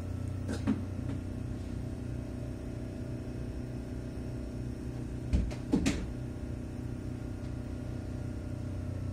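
Kintetsu 6432-series electric train standing at a station platform, its equipment giving a steady low hum. There is a single knock just under a second in and a cluster of two or three thumps about five and a half seconds in.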